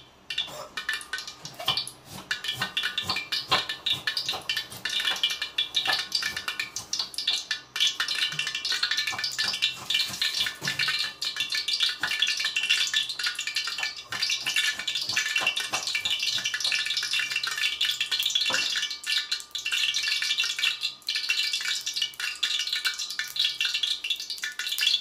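Olive oil heating in a wok, crackling and spattering steadily with a dense patter of small pops.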